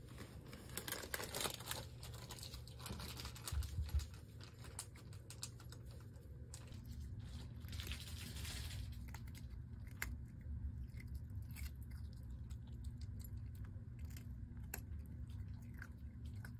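A Pomeranian puppy chewing and crunching a hard cookie, a run of small crackly crunches, with a couple of soft thumps about four seconds in.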